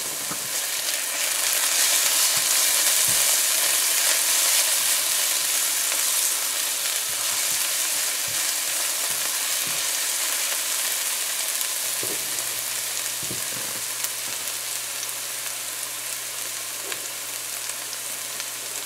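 Onions, scallions and freshly added pounded garlic and pepper sizzling in hot oil in a nonstick frying pan, stirred with a spatula that knocks lightly against the pan a few times. The sizzle swells a couple of seconds in, then slowly eases.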